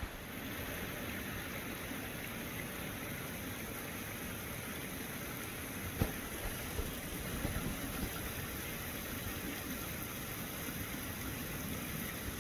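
Steady rushing of a mountain stream, with a single sharp click about six seconds in.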